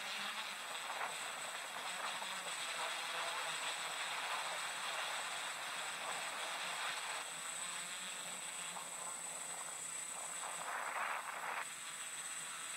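A steady rushing noise with a faint high whine, playing from the soundtrack of the projected video and heard through the room. It changes character about seven seconds in and drops a little near the end.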